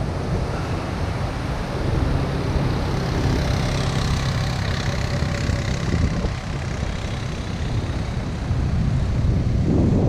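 An ATV's engine running steadily as it drives along the sand, its hum fading out a little past the middle. Underneath is the constant wash of heavy surf and wind on the microphone, swelling near the end.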